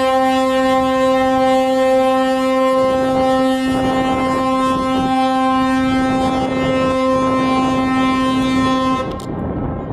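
Ship's horn sounding one long, steady, loud blast that cuts off about nine seconds in, with a rushing noise rising under it partway through.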